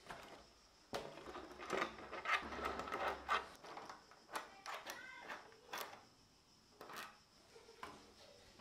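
Irregular clicks, taps and rattles of bolts being undone and a scooter's clear plastic windscreen being handled and lifted off its mounting arms, with a few brief squeaks.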